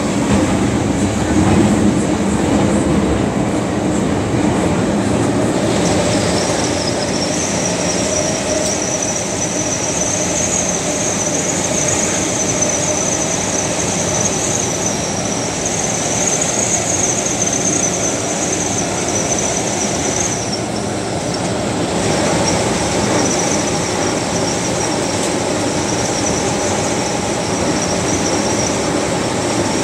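Metro train running, with the steady rumble of wheels on rail and a high-pitched wheel squeal that sets in about six seconds in, holds steady, drops out briefly about two-thirds of the way through, then returns more faintly.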